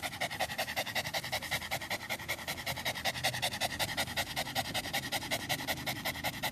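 A dog panting fast and evenly with its mouth open and tongue out, a steady run of quick breaths.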